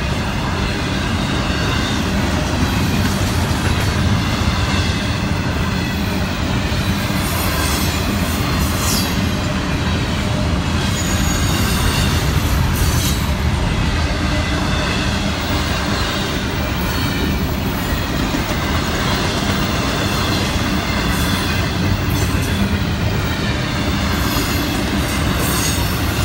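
Double-stack intermodal freight cars rolling past close by: a steady rumble of steel wheels on the rails, with wavering high wheel squeal running over it.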